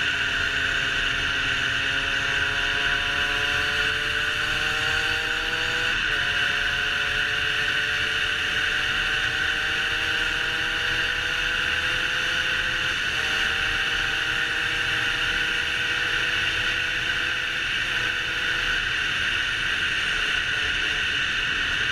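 Derbi Senda 50cc two-stroke engine pulling along at road speed. Its pitch climbs slowly in each gear and drops at gear changes about six and thirteen seconds in, and it grows fainter in the last few seconds. A strong wind rush on the helmet-mounted microphone lies over it throughout.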